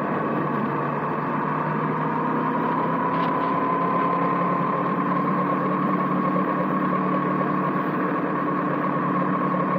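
Motorcycle engine running at a steady cruise, heard from a camera mounted on the moving bike, with its pitch creeping slowly upward as it gently gathers speed, over a haze of wind and road noise.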